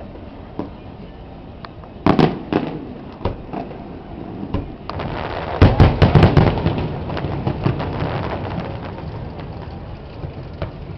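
Fireworks going off: a sharp bang about two seconds in, then a cluster of rapid loud booms about halfway through, followed by a dense run of small pops and rumble that slowly fades.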